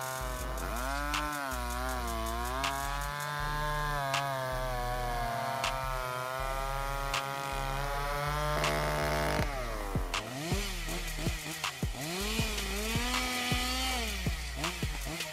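Two-stroke ECHO chainsaw cutting through a log, its engine pitch sagging and rising again as the chain bites and clears. About nine and a half seconds in, another chainsaw takes over, cutting into a large tree trunk, its pitch dipping again and again under load.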